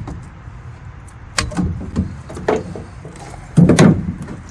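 Hollow knocks and clatter of 2-inch PVC pipe and fittings being handled: several sharp knocks, then a louder clattering burst near the end.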